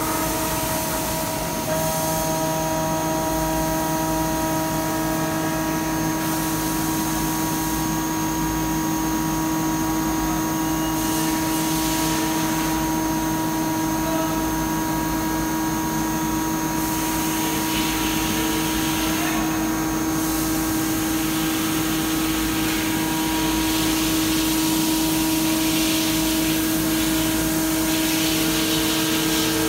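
Large gantry CNC milling machine cutting a metal plate: a steady whine of several held tones from the spindle, over a high hiss of cutting that swells and fades.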